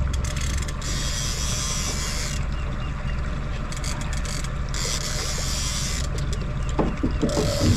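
Fishing boat's motor running steadily at low speed while trolling, with a hiss that comes and goes in stretches and a few knocks near the end.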